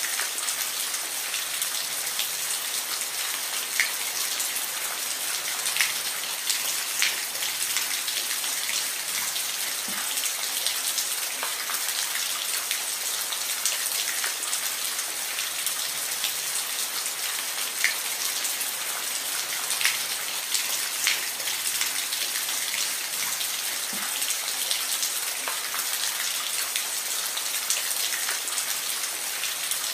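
Steady rain falling, an even hiss with scattered sharper drops ticking on a surface.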